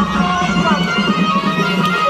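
Loud music played over a sound system: a wavering melodic instrumental line over a steady deep bass.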